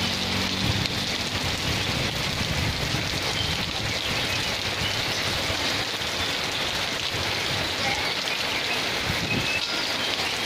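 Heavy rain falling steadily on a wet asphalt road and the vegetation beside it.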